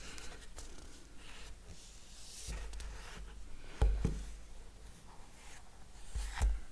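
Handling noise from an old iPhone in a flip case being picked up and turned over on a wooden table: soft rubbing and scraping with a few dull knocks, the loudest about four seconds in and another near the end.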